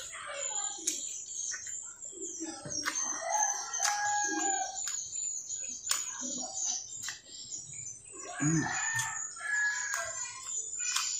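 A rooster crowing twice in the background, about three seconds in and again about eight seconds in, over close chewing and mouth clicks from eating by hand.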